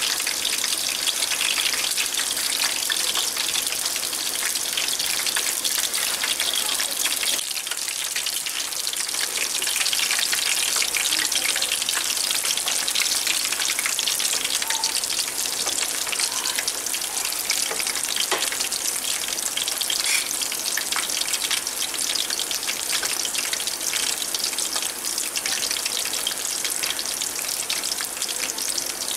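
Chapli kababs shallow-frying in hot oil in a metal pan, a steady, dense crackling sizzle.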